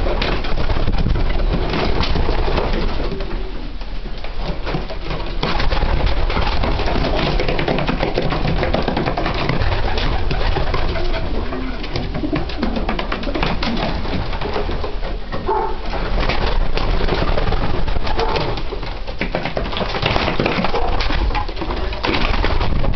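Racing pigeons cooing in a small loft, over a steady rustle with many small clicks and knocks.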